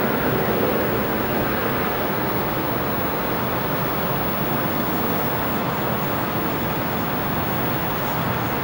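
Steady rumble of idling vehicle engines and city traffic: an even wash of noise with no sirens or sharp knocks.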